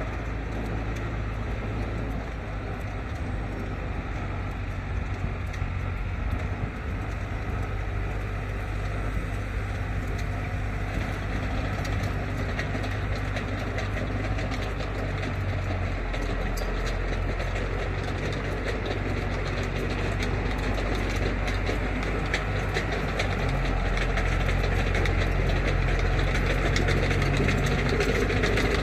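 Tractor engine running steadily at a constant pitch, getting gradually louder in the last few seconds.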